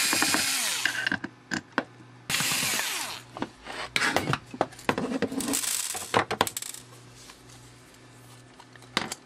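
Electric screwdriver running in short bursts as it backs screws out of a machined aluminium housing. The first burst rises in pitch as the motor spins up. Between the bursts there are sharp metallic clicks and scrapes as the screws and the metal plate are handled.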